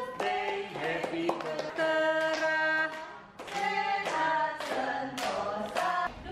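A small group of voices singing a birthday song together while clapping their hands along.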